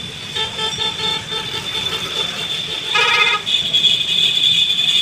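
A vehicle horn sounding briefly about three seconds in, over steady street noise with a thin high tone running through it.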